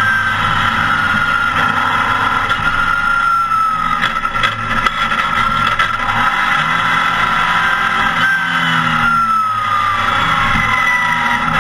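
Porsche 914 race car's engine heard loud from inside the cockpit at speed, its pitch falling and rising over and over as the revs drop and climb through the corners.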